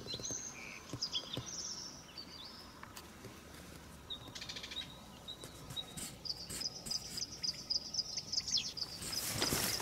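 Dawn birdsong in the open countryside: scattered high chirps and whistles, then from about six seconds in a long, high, steady trill. Near the end a louder rustling rises over it.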